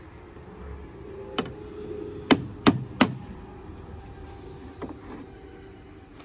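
Hammer striking the wooden bow of a hand-built plank boat: a single sharp blow, then three in quick succession about a third of a second apart, and a lighter knock a couple of seconds later.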